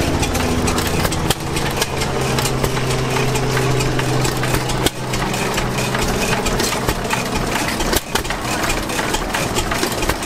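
Several antique hit-and-miss gas engines running together: a steady mix of exhaust pops and mechanical clatter, with a low steady drone that is strongest in the first half.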